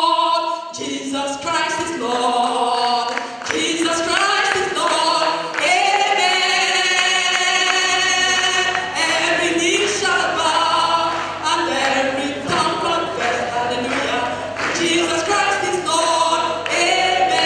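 A congregation singing a worship chorus together, led by a woman singing into a microphone, with sustained, changing notes throughout.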